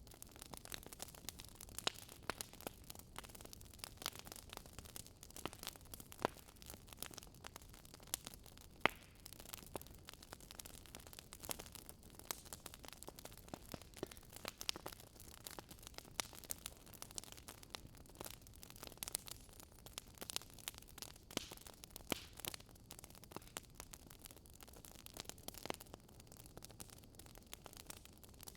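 Fire crackling in a fireplace: irregular sharp pops and snaps over a soft steady hiss.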